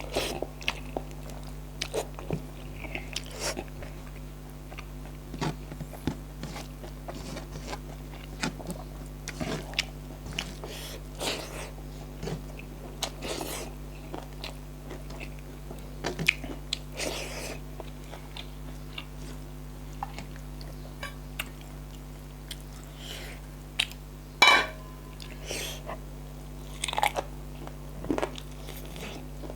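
Close-up eating sounds of a person chewing food, with scattered wet smacks and occasional crunches, over a steady low hum. A louder mouth sound stands out about 24 seconds in.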